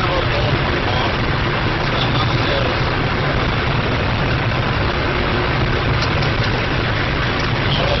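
Steady road and wind noise with a low engine hum inside a car cruising at about 200 km/h on a motorway.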